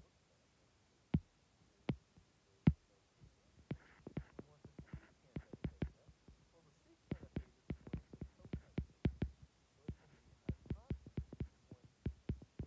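Stylus tip tapping and clicking on a tablet's glass screen during handwriting: irregular sharp taps, a few spaced out at first, then quick runs of them in the second half.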